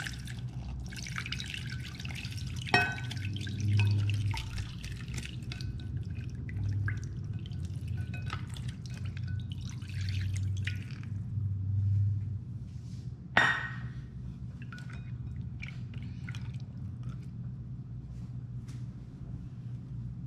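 Water poured from a stainless steel saucepan into a glass bowl of gelatin sheets, splashing and dripping, with two sharp clinks, one about 3 seconds in and one past the middle, over a steady low hum.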